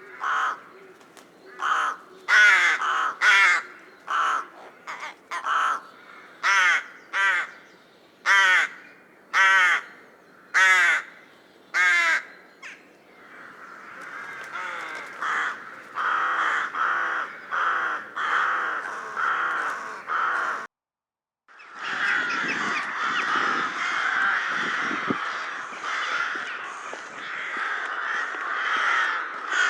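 Rooks cawing. First come loud, separate harsh caws, roughly one a second. After that the calls thicken into a dense run of many overlapping caws. A short dead gap follows, then a continuous chorus.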